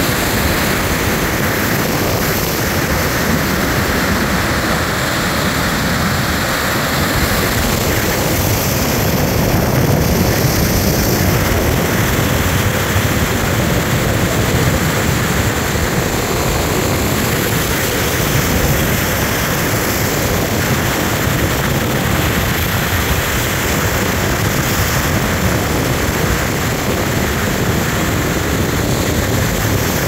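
Storm surf breaking over a rocky shore: a loud, steady rushing of crashing waves and churning foam, with a rumble in the low end that suggests strong wind on the microphone.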